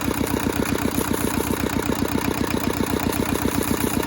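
Toyosha diesel engine of a Hinomoto E150D compact tractor idling steadily, an even, rapid beat of firing strokes.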